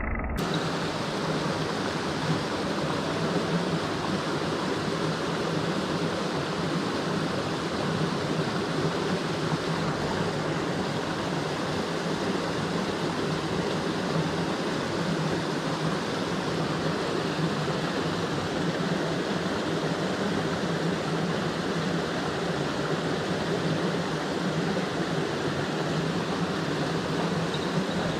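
Mountain stream rushing steadily, an even wash of flowing water.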